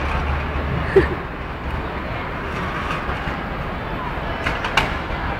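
Steady low rumble of outdoor background noise, with a single sharp knock about a second in and a quick cluster of clicks near the end.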